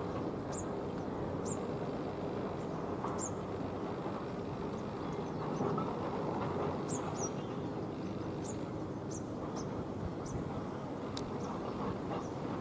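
Steady low drone of a distant ATR 72-600 twin-turboprop airliner descending on approach, with short high bird chirps roughly once a second over it.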